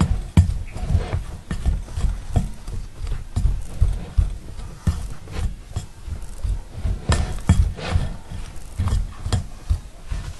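Blade-style pastry blender cutting butter into flour in a glass bowl, punched and twisted in by hand: repeated dull thumps, about two or three a second, with a gritty scraping.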